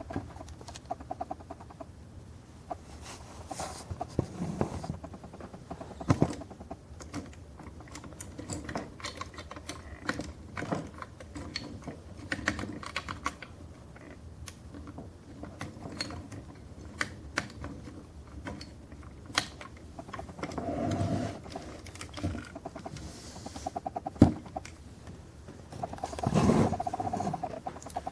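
Hands handling a small diecast metal scale model of a drill rig: scattered light clicks and taps, with two louder rustling handling noises in the second half.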